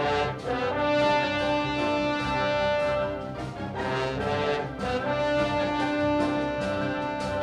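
Background music with long held brass notes.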